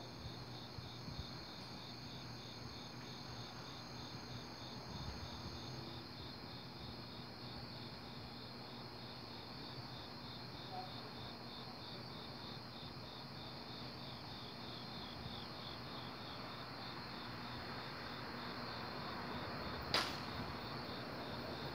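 Crickets chirping in a steady, even pulse. A soft rushing noise builds over the last few seconds as a train approaches, and a single sharp click sounds near the end.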